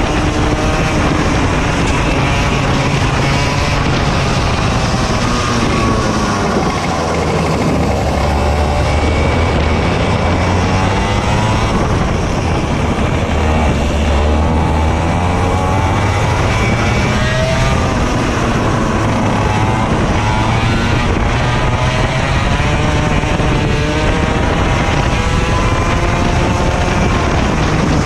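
Racing kart engine heard from the driver's seat, its pitch rising and falling over and over as it revs up on the straights and drops back for the corners.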